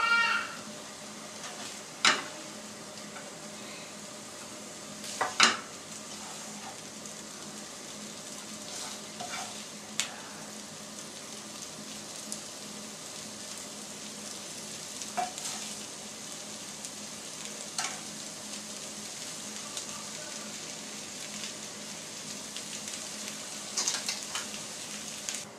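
A spoon scrapes and knocks against a non-stick frying pan as a cooked capsicum stir-fry is scooped onto a plate. The hot pan keeps up a steady, faint sizzle, and the scrapes and knocks come every few seconds.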